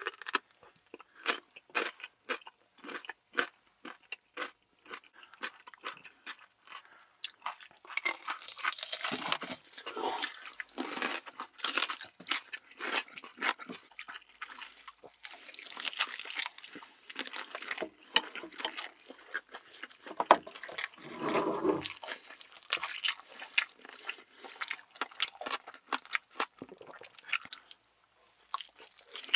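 Close-miked eating sounds: crisp crunching bites and chewing, first into a whole pickled radish, then into fried chicken.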